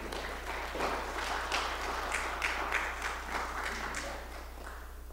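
Audience applauding, swelling about a second in and thinning out near the end, with a steady low hum underneath.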